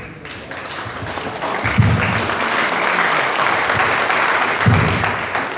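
An audience applauding, the clapping building up over the first second and then holding steady. Two short low thuds come through it, about two and five seconds in.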